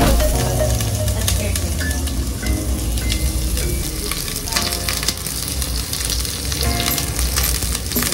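Sliced onion sizzling and crackling steadily as it fries in hot oil in a deep pot.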